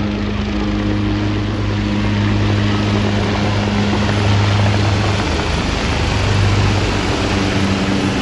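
Helicopter landing close by: loud, steady rushing of the rotor and engine over a low, even hum.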